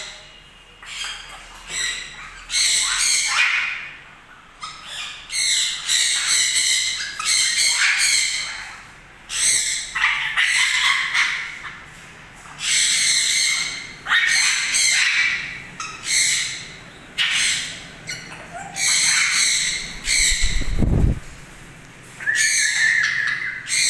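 African grey parrots squawking, a long run of loud, harsh calls repeated every second or two.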